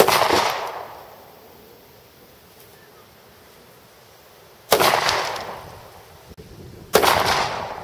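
Three 9x19mm gunshots: one at the very start, one just under five seconds in and a third about two seconds later. Each is a sharp crack followed by an echo that fades over about a second.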